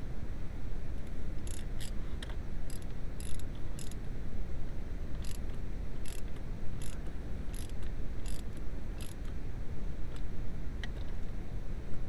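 Ratchet wrench clicking in short strokes, a dozen or so sharp clicks in ones and twos, as it turns the centre bolt of a puller on a steering column. A steady low hum runs underneath.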